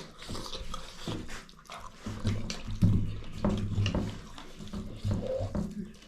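Wet, close-up eating sounds: chewing and lip-smacking of rice and pork in gravy, with many small scattered clicks.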